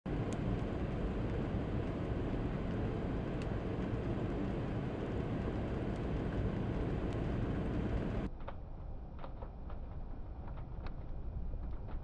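Steady blizzard wind noise, a dense low rush. It drops and thins at a cut about eight seconds in, leaving a few faint ticks.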